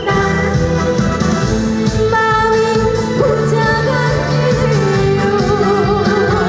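Female vocalist singing a Korean trot song live over loud backing music, holding a note with a wide vibrato near the end.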